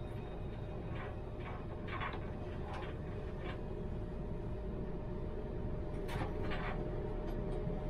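Tram running slowly: a steady low rumble with a constant motor whine, and scattered short clicks and knocks from the running gear.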